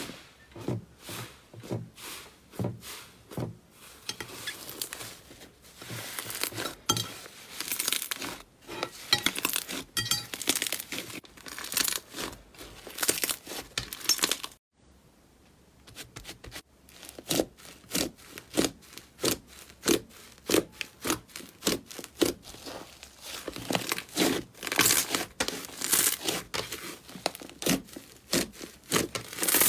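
Slime being pressed, squeezed and stretched by hand, giving dense, irregular crackling pops and sticky tearing sounds. The sound drops away briefly about halfway through, then the crackling resumes.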